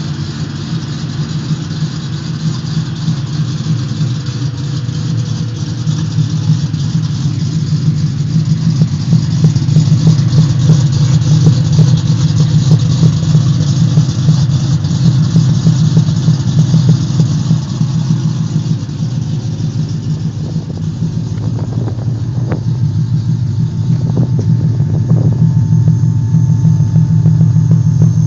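Ford SVT Lightning pickup's Whipple-supercharged V8 engine running steadily, its level swelling and easing off gently a few times.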